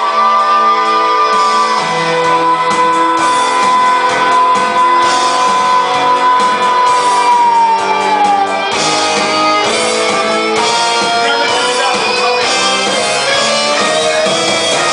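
Rock band playing, with electric guitar: a long held high note lasting about eight seconds slides down at its end, then the band carries on.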